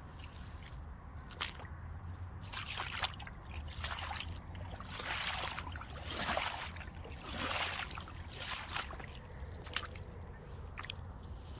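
Aigle rubber wellington boots squelching and sloshing through wet mud and shallow water, with several separate slow steps about a second apart through the middle stretch.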